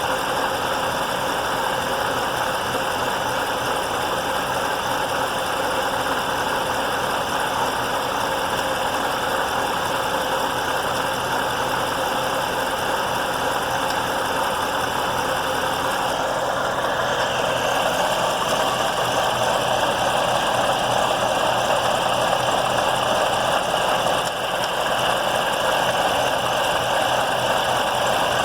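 Supercharged 6.2 L V8 of a C7 Corvette Z06 running steadily at idle, with a faint tapping/knocking inside the engine that sounds like a loose marble in the motor. The sound's make-up shifts slightly a little past halfway.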